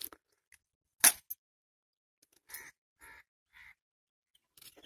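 A crow cawing faintly three times, short harsh calls about half a second apart, after a single sharp click about a second in.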